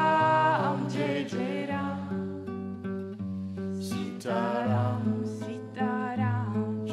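Background music: a song with singing over guitar and bass; a held note fades out about half a second in and the singing returns near the end.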